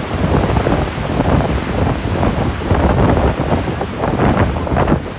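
Loud wind buffeting the microphone over the rushing water of a motor catamaran's wake.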